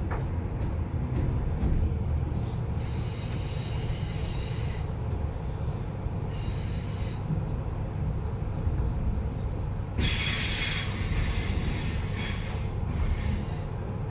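Class 317 electric multiple unit running, heard from on board: a steady low rumble of the train on the track. Twice, around three and six seconds in, short high squeals from the wheels come in. About ten seconds in, a louder, harsher wheel squeal starts suddenly and lasts a couple of seconds.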